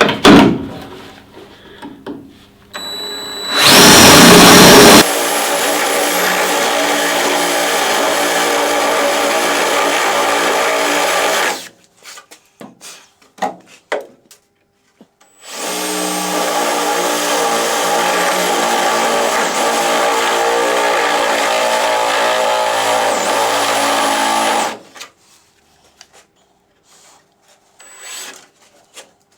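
Right-angle drill drilling out spot welds in car body sheet steel: a short, very loud harsh burst about four seconds in, then two long steady runs of the motor's whine, the first about six seconds and the second about nine, with a few clicks in the pause between them.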